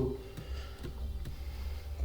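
A few faint computer mouse clicks over a low steady hum.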